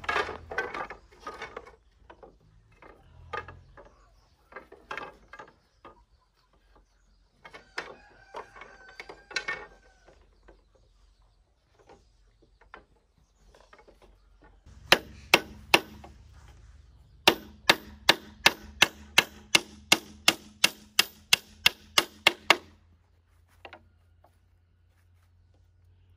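A tool striking wood: three sharp blows, a short pause, then a steady run of about seventeen blows at roughly three a second, after scattered knocks and clatter of handling.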